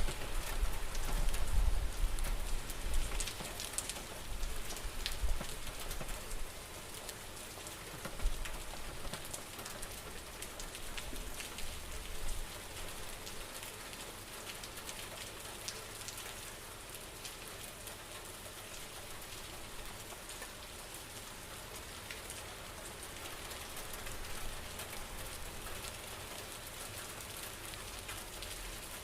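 Rain falling steadily, with many sharp drop hits. A low rumble is strong for the first several seconds, then eases off.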